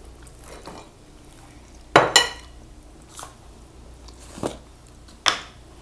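A few separate sharp clinks and knocks of tableware and a jar handled on a table, the loudest two close together about two seconds in, as an orange plastic screw lid is twisted off the jar.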